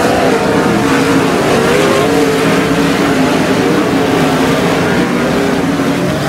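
A pack of 360 sprint cars racing, several V8 engines running hard at once, their pitches wavering up and down as the cars go through the turn and down the straight.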